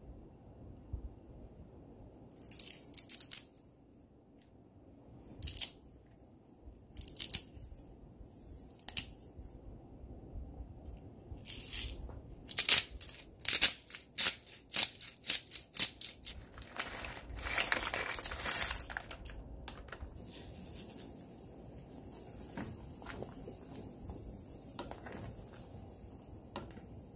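Bursts of rustling, crinkling and crunching as ingredients are handled and dropped into a pot of soup, with a quick run of crunches about halfway through, over the faint low sound of the pot boiling.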